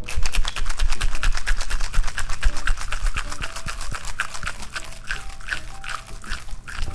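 Ice rattling hard in a cocktail shaker as a drink is shaken, a fast even rhythm of about five or six knocks a second.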